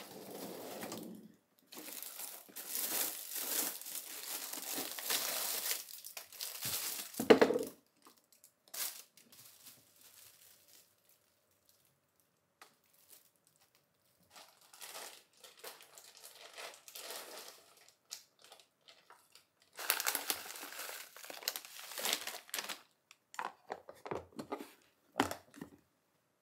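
Packaging crinkling and rustling as it is handled, in bouts, with a sharp knock about seven seconds in and a few light clicks near the end.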